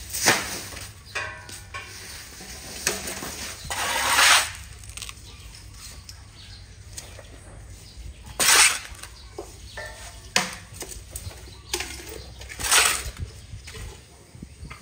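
Dry grass and hay being scraped up off a concrete floor and tossed into a plastic tray. There are several short, harsh rustling scrapes a few seconds apart, with quieter rustling between them.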